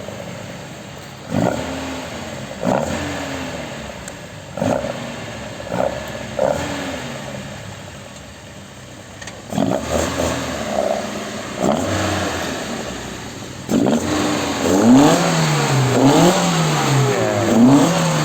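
Alfa Romeo GT 1750's twin-cam four-cylinder engine being revved with sharp throttle blips, each rise in revs falling back toward idle. From about halfway the blips come closer together, and near the end the revs rise and fall in quick succession, about once a second.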